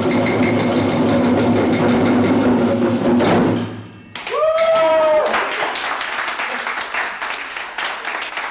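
A group of djembe hand drums playing a fast, continuous roll that cuts off sharply about four seconds in, on the facilitator's raised-arms cue to stop. A short rising-and-falling whoop follows, then clapping and cheering.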